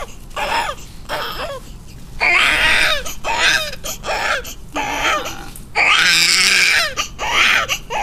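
Newborn baby crying: short cries broken by two long wails, about two seconds in and about six seconds in.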